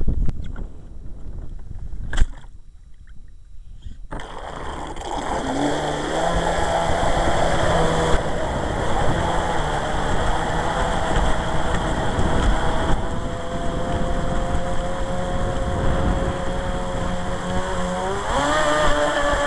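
Electric motor of a radio-controlled model boat (1620 kV, 3S battery, 45 mm plastic propeller) whining steadily over the rush of water from its wake. The whine comes in about five seconds in, after some knocks of handling and one sharp knock about two seconds in, and rises sharply in pitch near the end as the throttle is opened.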